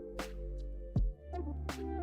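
Background music with a steady beat: bass and held notes under sharp percussion strikes.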